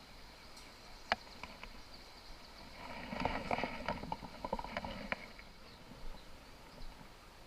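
A sharp click about a second in, then a run of clicks, rattles and rustling between about three and five seconds.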